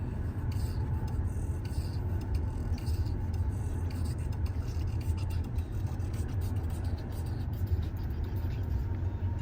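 Steady low rumble and road noise of a moving car, heard from inside the cabin, with faint scattered ticks.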